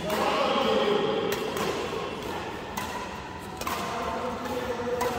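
Badminton rackets hitting the shuttlecock during a rally: a few sharp smacks, one every second or two, over steady hall background noise.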